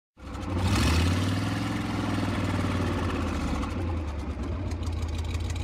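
A vehicle engine comes in abruptly and revs up about a second in, then runs on steadily at a low, even speed.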